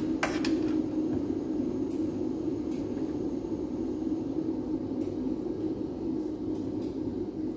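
Steady low kitchen hum beside a lit gas burner, with a sharp tap just after the start as an egg is cracked against the pot, and a few faint clicks later, including the hob knob being turned.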